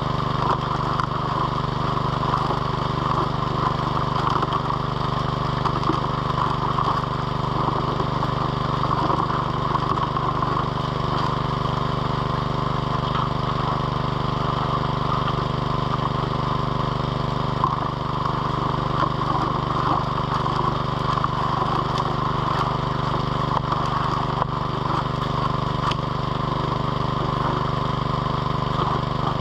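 Small engine-driven water pump running steadily at an even speed, pumping water to a high banker sluice.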